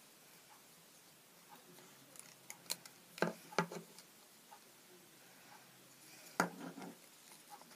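Wooden pencils clicking and knocking against each other while they are bound into a cross with rubber bands. There are a few sharp taps about three seconds in and a louder one about six and a half seconds in.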